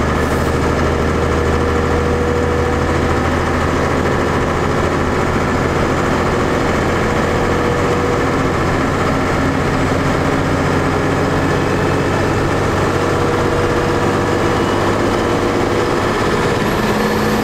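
12-valve Cummins 5.9 L inline-six diesel with compound turbochargers running steadily, heard from inside the cab, with the big turbo whistling over the engine. Near the end a faint high whistle rises and falls.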